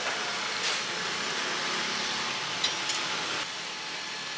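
Steady hiss of a street-food stall's kitchen, like fans and frying, with a few light taps. The hiss drops a little about three and a half seconds in.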